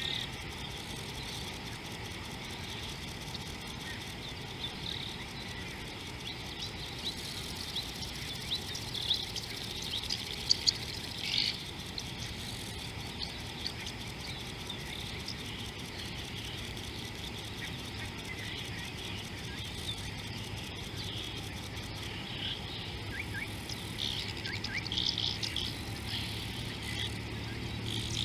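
Outdoor bush ambience: birds chirping and insects over a steady hiss, with a few sharp clicks or snaps about ten seconds in.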